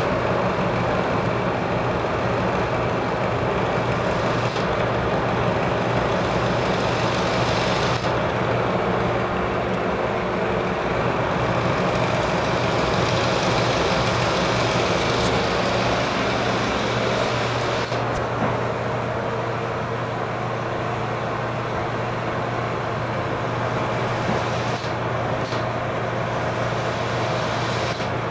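Ceiling exhaust fan running: a steady airy rush of moving air over a constant low motor hum.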